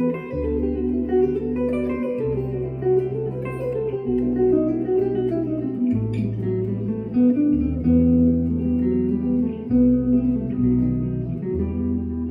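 Hollow-body electric guitar picking a wandering single-note improvised line over long held bass notes that change every second or two.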